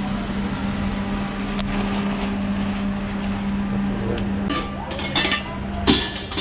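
A steady motor hum holding one constant pitch, with a rumble beneath it. From about four and a half seconds in, a few sharp knocks or clatters come over it, the loudest near the end.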